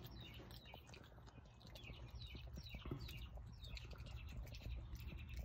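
Faint, irregular clicking and smacking from a Virginia opossum chewing its food and shifting about on a plastic kennel floor. Small bird chirps sound in the background.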